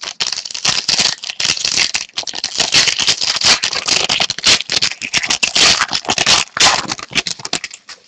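A hockey card pack being opened and handled: dense crinkling and crackling of the wrapper and cards that stops shortly before the end.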